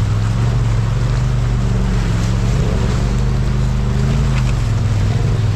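Off-road vehicle engine running steadily at low revs, easing off slightly near the end.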